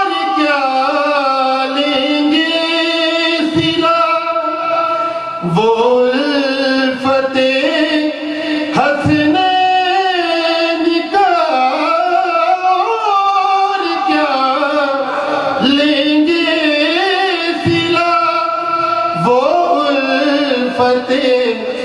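A man singing a devotional Urdu poem into a microphone, in long held notes that bend and waver, with short breaks between phrases.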